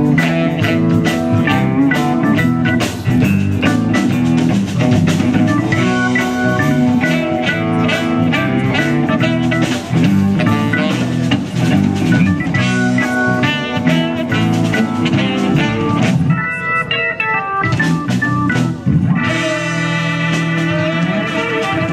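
Live band playing an instrumental passage with electric guitar, bass, drum kit, keyboard and saxophone.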